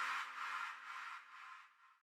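Outro music with steady held tones and a quick even pulse, fading out to silence.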